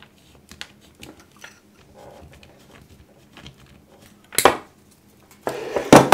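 Hand-handling noises from working on a small racing drone with pliers: scattered light clicks and rustles of plastic and metal parts. Two louder noises follow, a sharp knock about four and a half seconds in and a longer scraping clatter near the end.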